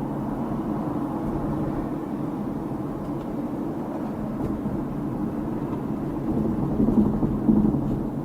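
Car driving noise heard from inside the cabin: a steady low rumble of engine and road, with two brief louder swells near the end.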